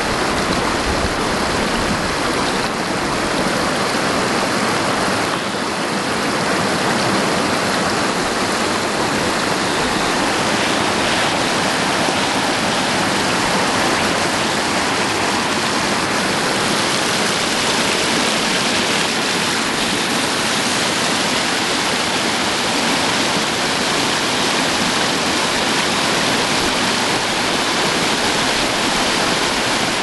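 Spring water rushing over flat rock in a shallow sheet, a steady, even rush of running water.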